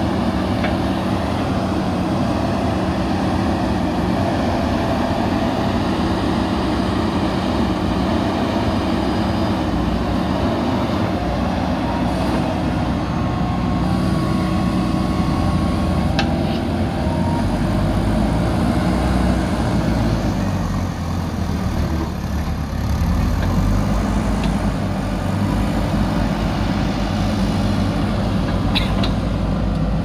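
A JCB 3DX Super backhoe loader's diesel engine runs under load as the backhoe arm digs, its note shifting as the hydraulics work, with a few brief knocks.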